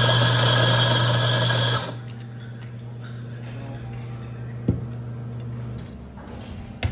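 Espresso machine's pump humming steadily as a shot pours into a cup. A louder hissing whir rides over it for the first two seconds and cuts off. The hum drops away about six seconds in, with a couple of light knocks.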